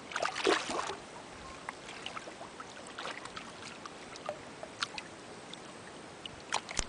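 Water splashing as a hooked golden dorado thrashes at the surface beside the boat: a burst of splashing in the first second, then scattered small splashes and drips, with a couple more just before the end.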